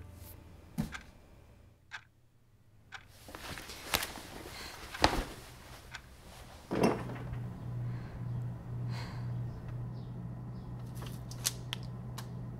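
A few scattered sharp knocks and clicks, the loudest about five seconds in. A sharp hit about seven seconds in sets off a low, steady droning hum with a slow pulse, typical of a horror-film soundtrack.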